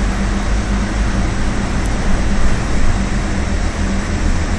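Scania OmniCity single-deck bus under way, heard from inside the cabin: a steady low diesel engine drone with road and tyre rumble.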